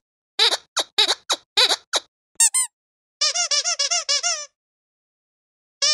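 Squeaky dog toy squeezed again and again: a run of short squeaks, then a faster run of about ten squeaks that rise and fall in pitch about three seconds in, then a pause before the squeaking starts again at the very end.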